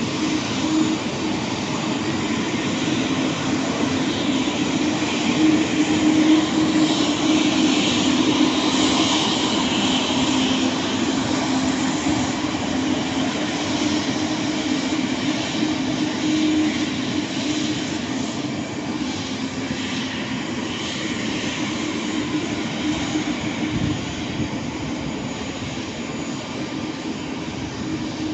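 Twin-engine jet airliner taxiing with its engines at low thrust: a steady jet rush over a low, even drone, easing off a little toward the end as the aircraft moves away.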